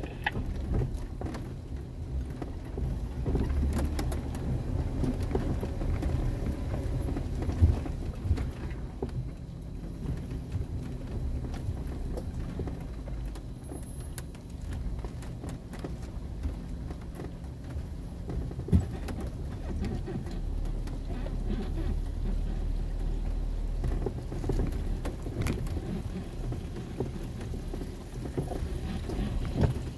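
Four-wheel-drive vehicle crawling slowly along a muddy dirt trail, heard from inside the cab: a steady low engine rumble with the rattle and crunch of tyres over rough ground. Two sharp knocks stand out, about a third of the way in and again past the middle.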